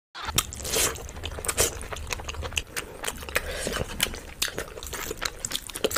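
Mukbang eating sounds: wet chewing and biting with many sharp, sticky clicks and smacks, as fingers work through saucy chicken curry and rice.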